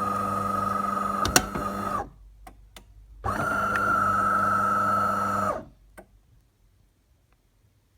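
Bean-to-cup coffee machine running with a steady hum in two runs: it stops about two seconds in, clicks a few times, starts again and cuts off just past halfway, then goes quiet.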